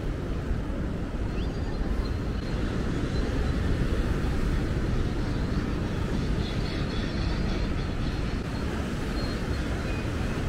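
Steady wind rumbling on the microphone, mixed with ocean surf breaking against lava rocks.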